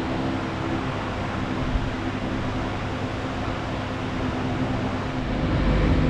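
A steady low mechanical hum over an even hiss.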